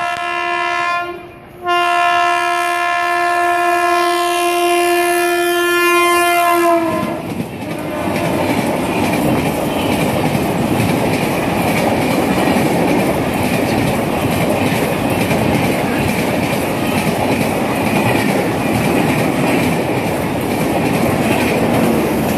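Locomotive horn sounding a short blast and then a long one of about five seconds, its pitch dropping near the end as the locomotive passes at speed. Then the steady rumble and wheel clatter of a Duronto Express's LHB coaches running through the station without stopping.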